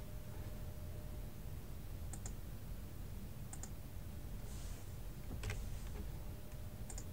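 Scattered computer mouse clicks, several in quick pairs, over a faint steady background.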